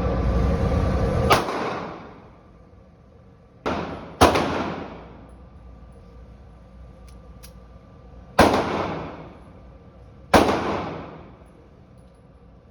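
Gunshots from firearms at a shooting range: five sharp single reports with a ringing decay after each, two of them about half a second apart. A low road rumble runs under the first second and a half and then stops.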